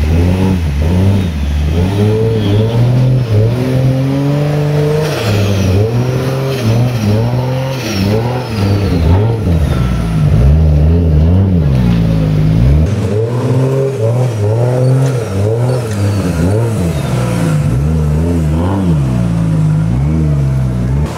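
Nissan Patrol Y61 engine revving up and down over and over, a rise and fall every second or two, as the 4x4 works its way through a deep muddy rut.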